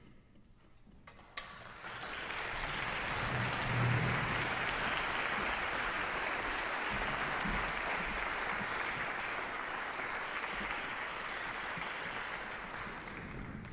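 Audience applauding in a concert hall. It starts about a second and a half in, holds steady, then tapers off near the end.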